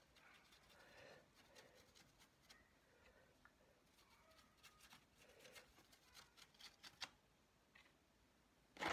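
Near silence with faint scratching and light ticks of a fine paintbrush dabbing paint onto a textured papier-mâché rock surface. A brief louder rustle comes near the end.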